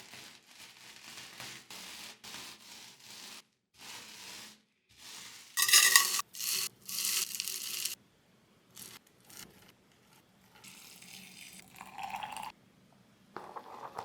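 Kitchen cooking and food-preparation noises in short clips cut one after another. They are mostly hiss-like handling sounds that start and stop abruptly, loudest for about two seconds around six seconds in, with a near-silent gap a little later.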